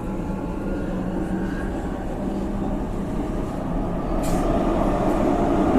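Subway train running: a steady low rumble with a droning hum, growing louder about four seconds in, with a short hiss just then.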